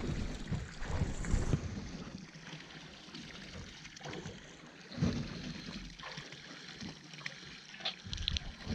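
Water lapping and trickling against a small boat's hull, with some wind noise and a soft knock about five seconds in.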